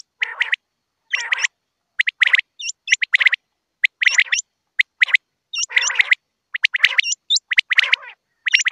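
Common quail calling over and over: short bursts of sharp, whistled notes, several a second, with clean gaps between them.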